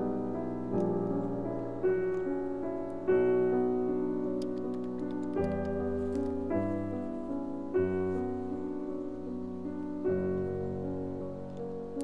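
Background piano music: slow, sustained chords struck one after another.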